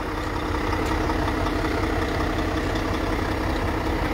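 2015 Mack CXU613 truck's diesel engine idling steadily.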